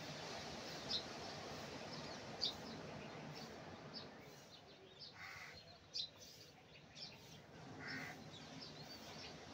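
Small birds chirping in short, high notes, with two longer, lower calls about five and eight seconds in, over the faint steady wash of small waves breaking on the beach.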